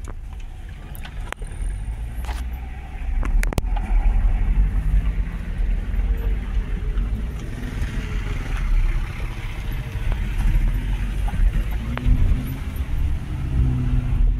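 Inside a moving small Toyota car: steady low engine and road rumble, the engine note rising and falling as the car pulls along. A few sharp knocks come in the first few seconds.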